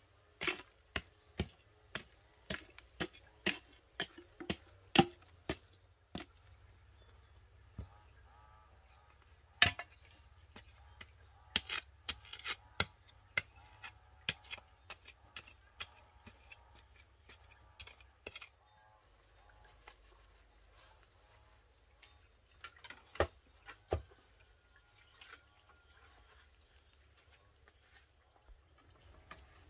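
A run of sharp chopping knocks, about two a second for the first six seconds, then scattered and irregular: a blade striking wood.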